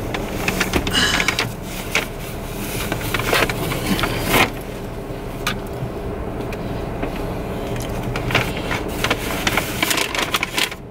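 Rustling and brushing of a jacket being pulled off and a paper takeout bag being handled, with scattered soft knocks, over a steady low hum.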